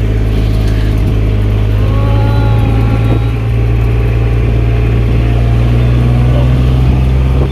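Vehicle engine and road noise heard from on board while driving: a steady, loud low drone with a few faint high squeaks about two seconds in.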